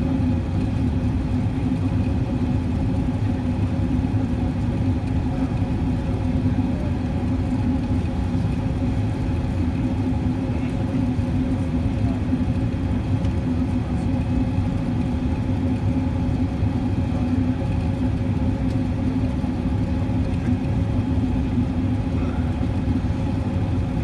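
Steady cabin drone of an Airbus A380 airliner in descent, heard from inside the cabin: jet engines and rushing airflow, with a low rumble and a constant hum.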